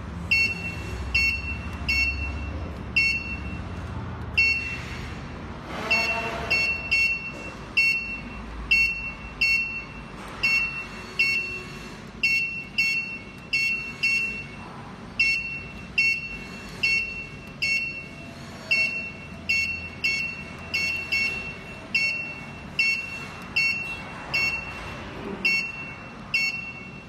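Digital control panel of an electric open fryer beeping at each key press while it is being programmed: short, high, identical beeps, single or in quick pairs, about one to two a second with a few brief pauses.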